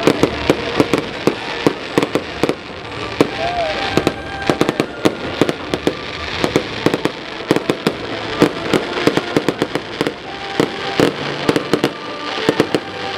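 Fireworks display: a rapid, irregular run of sharp bangs and pops from bursting aerial shells.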